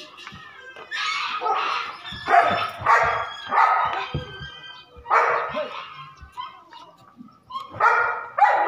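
A dog barking repeatedly, several loud barks with short pauses between them and a final pair near the end.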